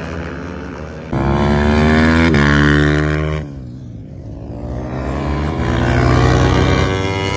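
Racing superbike engines at high revs as bikes pass on the track. A loud pass starts suddenly about a second in, and its pitch drops steeply near the middle. Then another engine climbs in pitch and loudness and eases off near the end.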